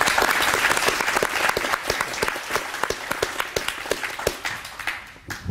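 Applause: many hands clapping, dense at first, then thinning and fading out over about five seconds.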